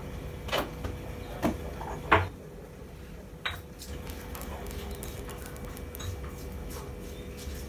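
Kitchen clatter as a plastic container and a pan are handled at a stove: a few separate knocks and clinks, the loudest about two seconds in, over a steady hum.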